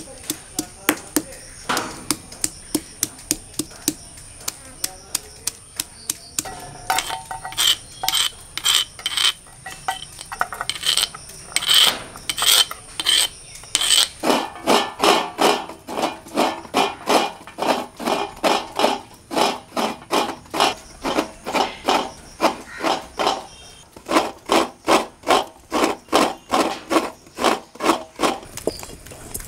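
Stone pestle crushing and grinding shallots on a flat stone grinding slab: a few scattered knocks at first, then rhythmic stone-on-stone rubbing strokes, about two a second, through the second half.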